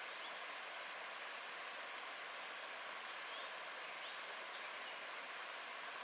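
Shallow stream water trickling and splashing down moss-covered sinter (tufa) terraces: a steady, even rushing hiss.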